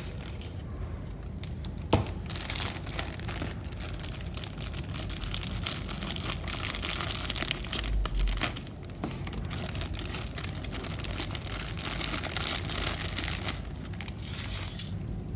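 Clear plastic packaging bags crinkling and rustling as the figure parts are handled and unwrapped, with a sharp click about two seconds in and a dull low bump a little past the middle.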